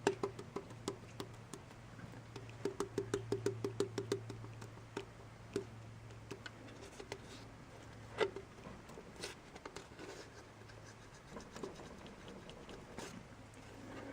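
Small clicks and taps of hand work on engine parts, with a run of quick, even clicks, about six a second, some three seconds in, over a low steady hum.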